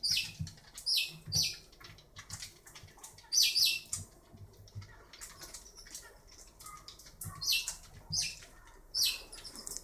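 A ferret dragging a lemon over a tile floor: short, hissy scuffing and scraping noises that come in clusters a few seconds apart, with faint knocks in between.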